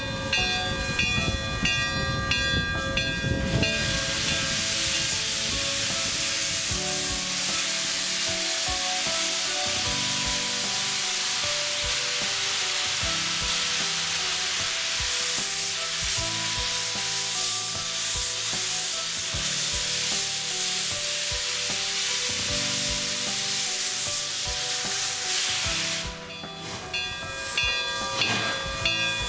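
Steam hissing loudly and evenly from IAIS 6988, a Chinese QJ-class 2-10-2 steam locomotive, starting a few seconds in and cutting off suddenly near the end.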